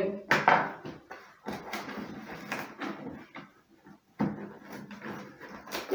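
Cardboard box being opened by hand, with packing tape pulled and ripped and the flaps scraped and knocked. It comes in uneven noisy bursts, with a sharp click near the start, a short lull about four seconds in, and another click near the end.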